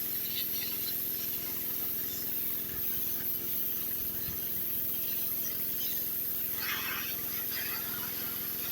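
Gas pressure washer with a horizontal-shaft Honda engine and Cat pump running steadily, with the hiss of the water spray. A short louder rush of hiss comes about seven seconds in.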